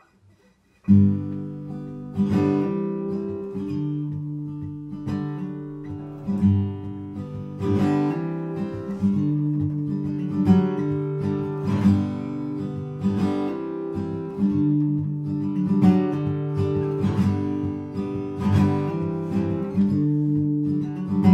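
Steel-string acoustic guitar playing a solo intro of picked and strummed chords, starting about a second in.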